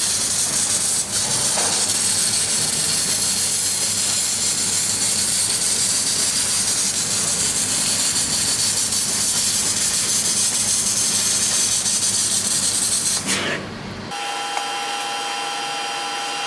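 1500 W fiber laser cutter cutting 4 mm carbon steel: a loud, steady hiss of assist gas and the cut at the cutting head. About fourteen seconds in it cuts off abruptly, leaving a quieter steady hum with several steady tones.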